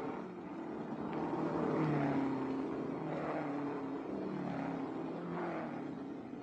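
Racing car engines revving as cars pass one after another on a street circuit, the pitch rising and falling in several swells. The loudest pass comes about two seconds in.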